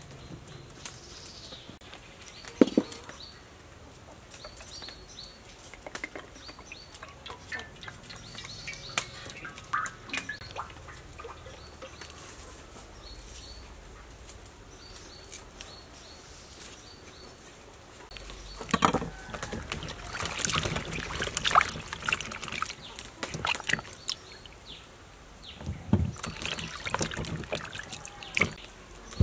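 Vegetables being washed by hand in a plastic basin of water: irregular splashing and sloshing, louder in the last third. Before that, only scattered light taps and clicks of handling food.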